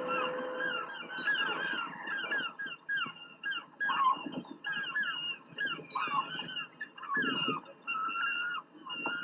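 A flock of gulls calling, many short overlapping cries one after another, over the steady hiss of an old film soundtrack.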